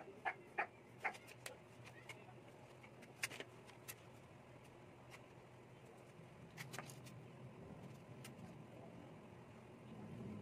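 Mostly quiet, with a few short clucks in the first second, then scattered light clicks and taps over a faint low hum.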